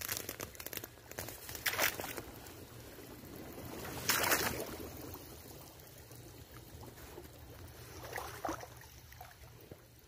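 River water sloshing and splashing, with louder splashy swells about two and four seconds in and a smaller one near the end.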